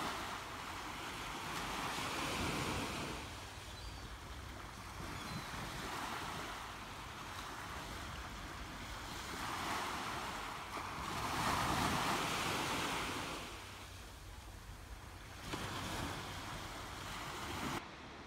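Small waves breaking and washing up a sandy beach, the surf swelling and fading every few seconds. Near the end it cuts suddenly to a fainter, steady hiss.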